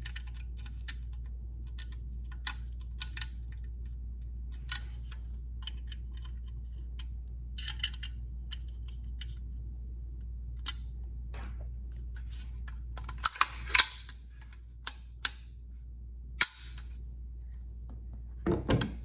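Scattered small clicks and light metallic taps as the handguard screws on an AKB-23 rifle kit are tightened, with a louder cluster of clacks about two thirds of the way through and one sharp click a few seconds later.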